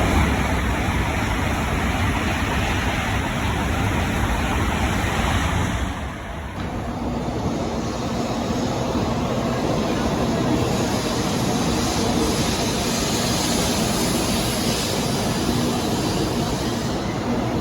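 Shinkansen train passing through the station at speed: a loud, continuous rushing of air and wheel noise that changes in character about six seconds in.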